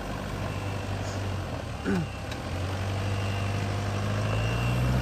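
Mitsubishi Pajero's engine running steadily under load on a steep off-road hill climb, a low drone that rises somewhat and grows a little louder near the end.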